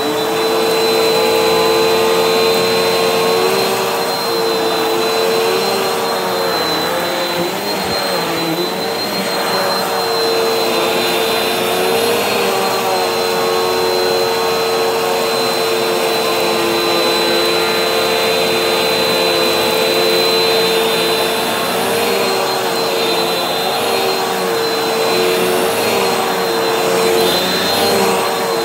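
Vacuum cleaner running steadily, its motor whine wavering slightly in pitch now and then.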